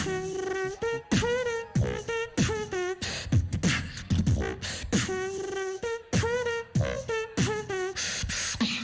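Live beatboxing: sharp kick and snare sounds made with the mouth, about two hits a second, under a hummed melody line with a wavering pitch, performed by one voice at the same time in phrases that repeat.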